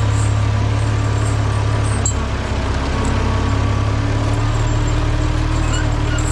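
International Harvester Farmall 460 tractor engine idling steadily while still warming up after standing for a month.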